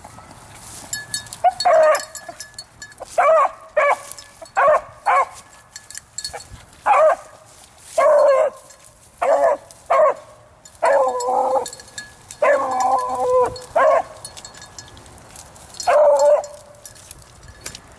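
A beagle baying over and over, as a hound gives tongue when it is trailing a rabbit. It gives about fourteen short barks, with two longer drawn-out bawls about two-thirds of the way through.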